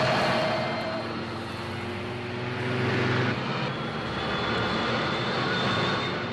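Motorcycle engine on an old film trailer's soundtrack, a steady drone whose pitch sinks slightly. It breaks off abruptly at a cut about three seconds in, then runs on.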